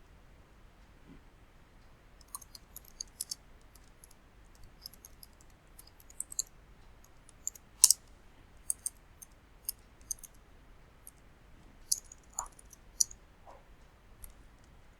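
Scattered, irregular clicks from a computer mouse and keyboard in use, coming in small clusters with a louder click about eight seconds in.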